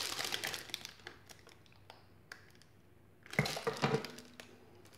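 Clear plastic bag crinkling and rustling in the hands as it is held in a hand-pressed impulse sealer, then a quiet stretch of about two seconds while the arm is held down. A bit past halfway comes a louder burst of crinkling with small clicks as the sealer's arm is let up and the sealed bag is pulled out.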